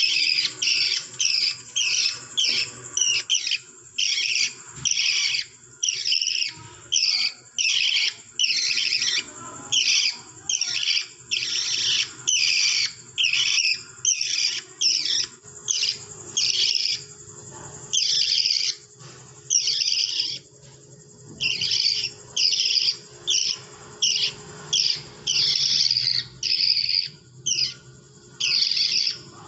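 Budgerigar giving a long series of harsh, scratchy chirps, about two a second, with a few brief pauses.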